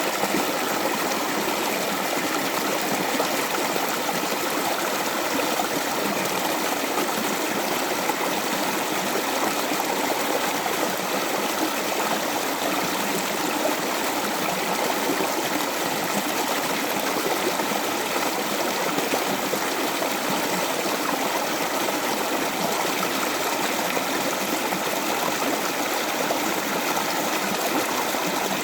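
Running water, a steady rushing flow that holds even with no breaks or changes.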